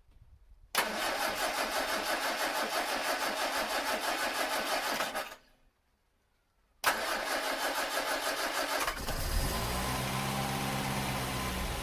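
Humber Sceptre Mk3's four-cylinder engine being cranked on the starter for several seconds without firing, then a short pause and a second crank. It catches about nine seconds in, revs up briefly and settles to a steady run. This is the first start with its twin Zenith-Stromberg carburettors refitted with new needle valves and floats.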